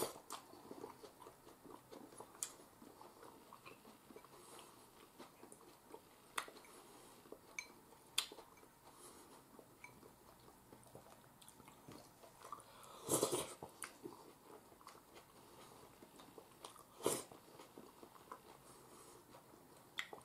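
A person quietly chewing a mouthful of beef cream stew, with occasional faint clicks and two louder brief noises in the second half.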